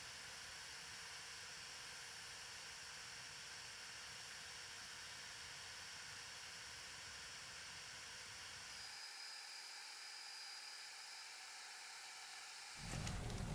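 Faint steady hiss for most of the time. Near the end an electric drill's motor comes in with a loud buzz, spinning a brass lure blank in its chuck.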